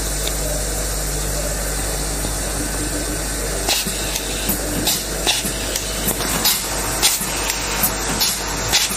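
WPM-2502 nylon cable tie machine running, a steady hiss over a low hum. Sharp clicks and taps begin about four seconds in and come irregularly, about one or two a second.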